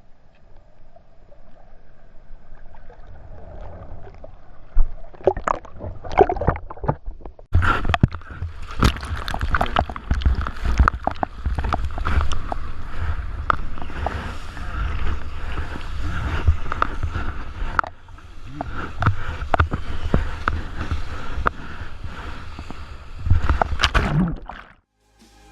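Ocean water rushing and splashing around a surfer riding a wave, heard close up through a waterproof action-camera housing, with rough, uneven splashes throughout. The sound jumps abruptly louder about seven and a half seconds in and cuts off suddenly near the end.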